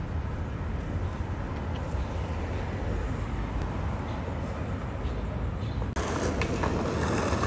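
City traffic on a downtown street, a steady low rumble. About six seconds in it cuts to louder street sound with skateboard wheels rolling on pavement and a few sharp clicks.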